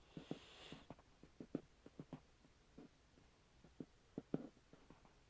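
Near silence, broken by faint, irregular small clicks and ticks, a dozen or more scattered over the few seconds.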